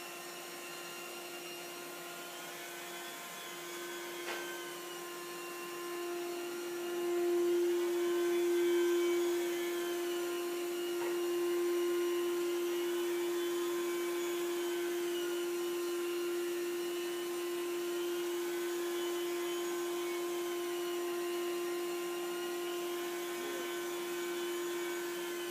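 Rotovac rotary carpet-extraction wand running over carpet under vacuum: a steady hum with a higher whine that wavers slowly up and down as the wand is worked back and forth, and a brief tick about four seconds in.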